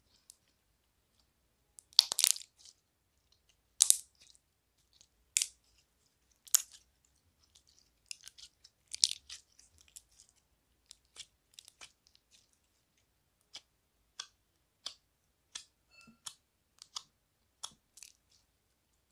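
Pink shimmery slime being squeezed and kneaded by hand, giving sticky, crackling squishes and pops. A few louder squishes come in the first half, then a run of short pops about one or two a second.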